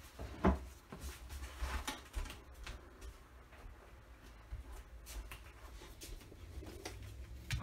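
Quiet room with a low steady hum and a few faint knocks and rustles, one about half a second in and a cluster around two seconds in.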